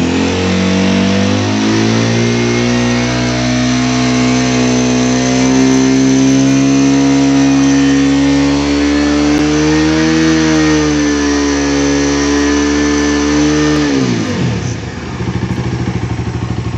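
Bajaj Dominar 250's single-cylinder engine free-revving on its stand. The revs climb over the first couple of seconds and are held high and steady for about twelve seconds, with a slight surge near the middle. Near the end the throttle is released and the revs drop back toward idle.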